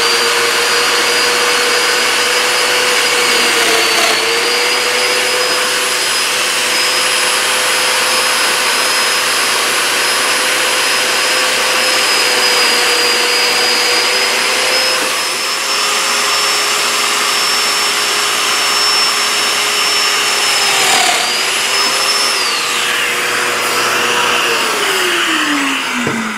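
Festool Domino joiner's motor running steadily while cutting 4 mm mortises in dense cocobolo, its pitch dipping briefly twice under load. Near the end it is switched off and winds down with a falling pitch.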